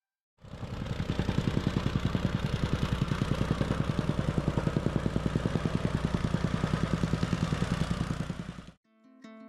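Engine-driven machine running with a fast, even pulse of about ten beats a second. It starts abruptly just after the start and cuts off suddenly near the end.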